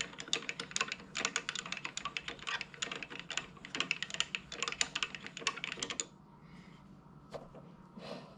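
Rapid, irregular clicking and ticking from the mini lathe's tailstock handwheel and quill screw as the handwheel is cranked to run the quill all the way out, stopping about six seconds in. A couple of single clicks follow near the end.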